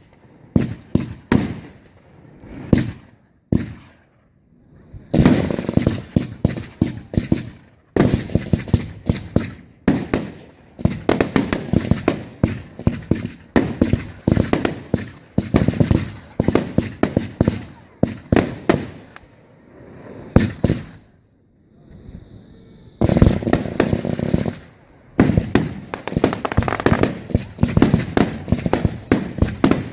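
Professional fireworks display: rapid volleys of aerial shell bursts and crackling bangs. The bangs come thick and fast, with short lulls about 4 seconds in, around 8 seconds and again past 20 seconds.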